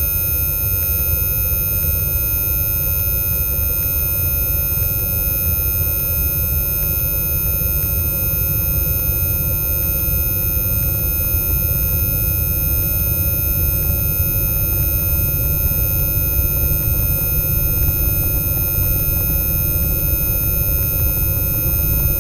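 A steady, loud drone: a dense low rumble with a cluster of steady high-pitched sine-like tones held over it, unchanging throughout.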